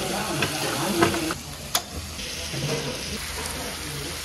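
Beef intestines and liver sizzling on a hot stone griddle, a steady frying hiss, with a single sharp click about a second and a half in and faint chatter behind.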